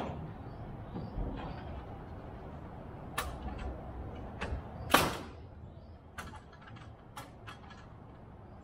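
Sharp knocks and bangs from work on wooden roof rafters. Several separate strikes, the loudest about five seconds in, with lighter clicks and taps between.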